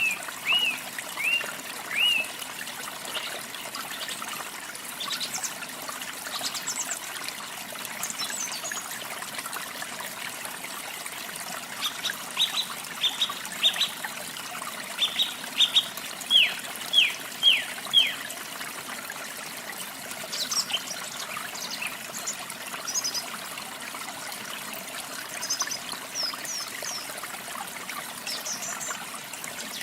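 Water trickling and splashing steadily, with birds singing over it: a few short notes at the start, a run of quick downslurred whistles midway, and high thin chirps toward the end.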